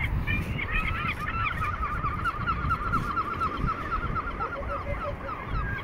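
Gulls calling: many short repeated calls, running together fast from about one to four seconds in, over a low rumble.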